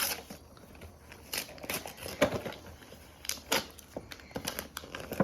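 Toy packaging being handled and opened: irregular crinkling and sharp plastic clicks.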